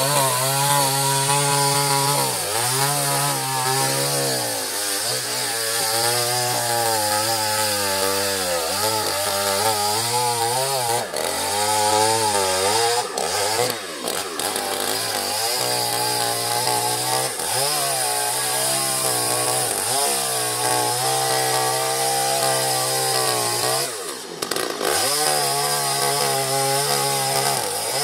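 Two-stroke chainsaw running hard while cutting into a coconut palm trunk. Its engine note keeps sagging in pitch under the load of the cut and climbing back up. It dips briefly a few times, most clearly about four seconds before the end.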